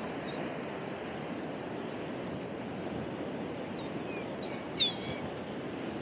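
Steady rush of ocean surf breaking on the beach, with a brief cluster of high-pitched bird calls about four and a half seconds in.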